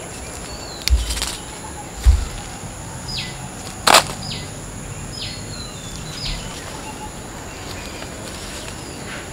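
Garden ambience: a steady high insect drone, with a bird giving four short falling calls about a second apart in the middle. There are a couple of low thumps early on and one sharp click about four seconds in.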